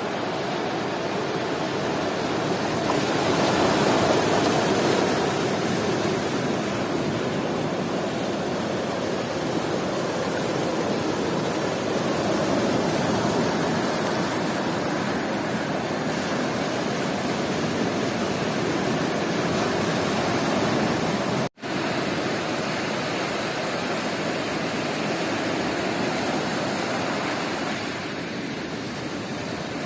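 Sea surf washing onto a beach, a steady rushing noise that swells about four seconds in and again around twelve. It cuts out for an instant about two-thirds of the way through.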